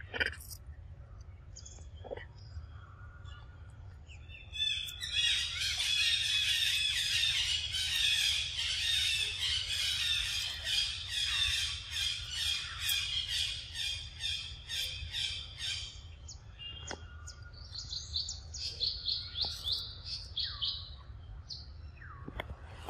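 Birds chirping: a long run of rapid, overlapping high chirps starting about five seconds in, then a shorter run of chirps later on.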